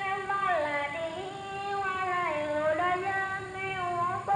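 A high voice singing, holding long notes that glide slowly up and down.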